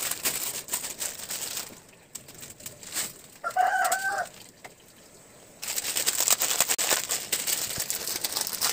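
Plastic instant-noodle packets crinkling and rustling as they are handled and opened, in two stretches. About three and a half seconds in, a chicken calls once, briefly, with a wavering pitch.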